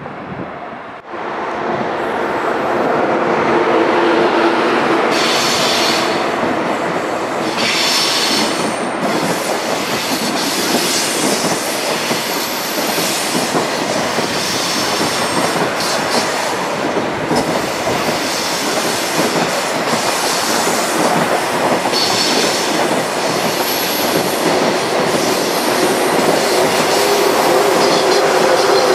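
ICE high-speed train running past on a curve: steady wheel-on-rail running noise starting about a second in, with repeated high screeches from the wheels in the curve.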